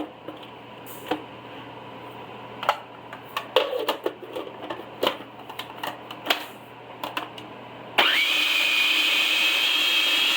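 Utensils clicking and scraping as cooked meat filling is spooned into a food processor. About eight seconds in, the food processor's motor starts and runs steadily with a high whine, chopping the filling.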